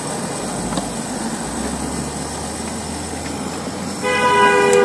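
Small electric oil-extractor pump running steadily, pulling air through its hose now that the mower's oil is drained. About four seconds in, a car horn sounds loudly on two steady notes for over a second.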